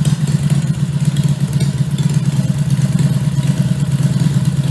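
Homemade 60-degree V-twin minibike engine running at a steady idle, loud and even, with no revving.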